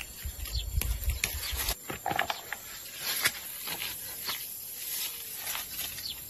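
Rustling of dry yardlong bean vines and leaves, with scattered sharp snaps and clicks as the bean pods are picked by hand. A low rumble runs under the first couple of seconds.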